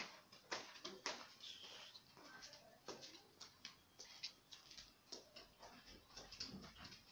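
Very faint sound of a large outdoor crowd: scattered distant voices, mixed with many short clicks and taps.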